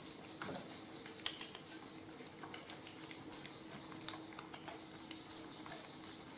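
Faint, scattered small clicks and taps of a knife working a green citrus peel and young macaques handling food, with one brief falling squeak about half a second in, over a steady low hum.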